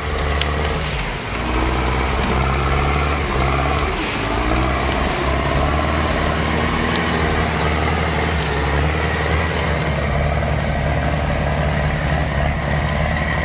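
Diesel engine of a Caterpillar 518 log skidder running, its pitch shifting in the first few seconds and then holding steady, with a few sharp clanks.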